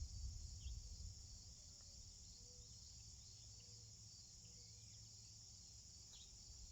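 Near silence, with a faint, steady high-pitched chirring of insects in the background.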